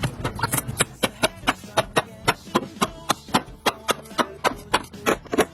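Sharp, evenly spaced clicks, about four a second, over faint background music.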